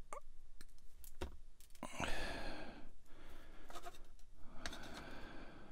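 A few sharp clicks of plastic nippers and small styrene parts being handled, then three breathy exhalations of about a second each from the modeller.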